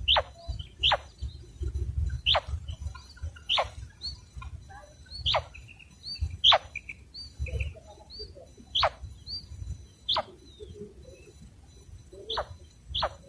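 A quail calling: sharp, high single notes that drop quickly in pitch, about one every second or so, with softer short peeps in between.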